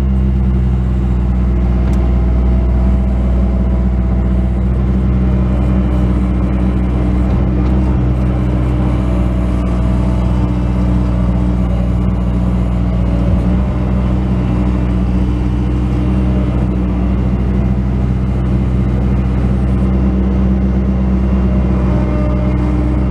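Bobcat S185 skid steer loader's diesel engine running steadily at working throttle, with a fainter whine above the engine note that shifts in pitch now and then.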